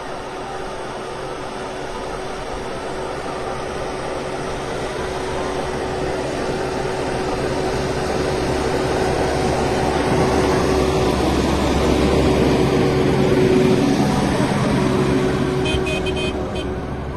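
Heavy snow-clearing machine's diesel engine running, growing steadily louder to a peak about three-quarters of the way through and then fading a little, as if it approaches and passes.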